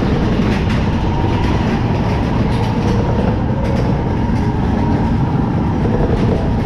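Space Mountain roller coaster train running along its track, heard from on board: a loud, steady rumble with a rapid clatter of wheels running through it.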